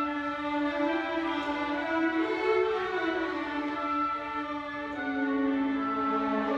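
Orchestra with a string section playing a slow passage of long held notes; the melody rises and falls back about halfway through, and the harmony moves to a new chord about five seconds in.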